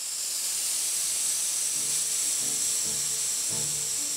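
A steady high hiss, a sound effect like fine powder sweeping, with intro music of low sustained notes coming in under it about two seconds in and building.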